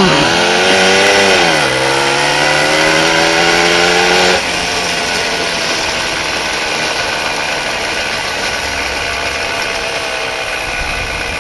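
A 1979 Tomos Bullet A3 moped's single-cylinder two-stroke engine running loud under way. Its pitch dips in the first couple of seconds and then climbs slowly as it pulls. About four seconds in it drops a little quieter and carries on steadily.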